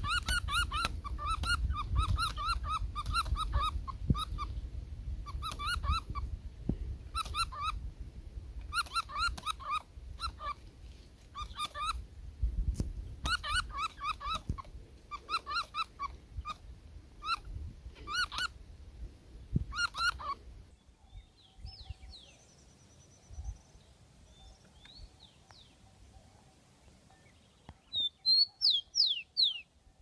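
A bat caught by a snake squealing in distress: runs of short, nasal, repeated calls, several a second, for about twenty seconds. These stop suddenly and give way to faint scattered bird chirps, with a brief burst of loud chirping near the end.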